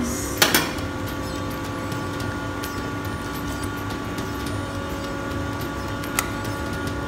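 Steady kitchen hum with a few held tones. Over it, a metal utensil clinks sharply against a stainless steel pot twice about half a second in, and once more, fainter, near the end.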